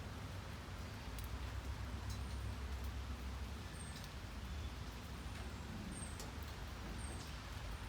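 Steady rain with scattered drops ticking, over a low rumble. Short high chirps come every second or two.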